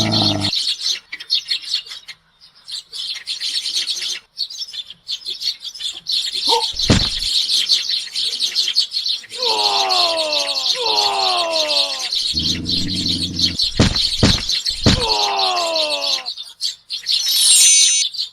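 A flock of sparrows chirping continuously. Several falling swoop sounds, a short low hum and a few sharp clicks break in around the middle.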